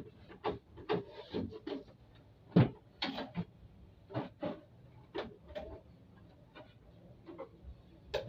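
Sewing machine worked slowly by a beginner, making uneven clicks and knocks about one or two a second, with the loudest knock a little under three seconds in.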